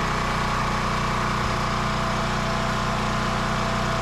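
Portable gasoline generator running at a steady, even speed under load while powering a gas furnace. It is running smoothly, with no surging or hunting.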